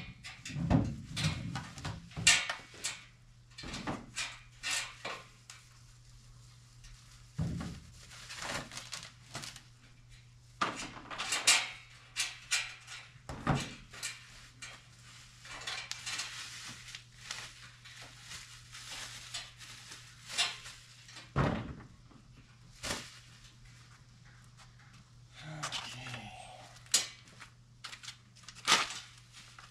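Scattered clanks, clicks and rattles of metal mini-bike parts being handled and pulled out of a shipping crate, at irregular intervals, over a low steady hum.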